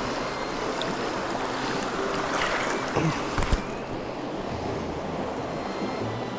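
Fast-flowing river water rushing over stones and shallow riffles, a steady rush, with a couple of brief knocks around the middle.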